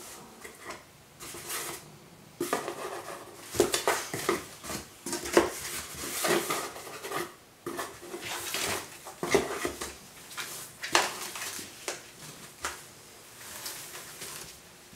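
Cardboard box scraping and rustling as a cat rolls, squirms and claws around inside it, in irregular scratchy spells.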